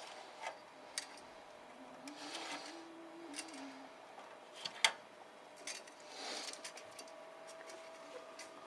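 Scattered light clicks and rubbing of server hardware being handled and fitted by hand, with one sharper click about five seconds in.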